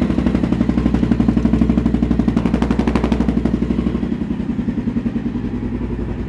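Honda XR650L's air-cooled single-cylinder four-stroke engine idling with a rapid, even firing pulse. It has just started from cold, running again now that a new CDI has restored spark.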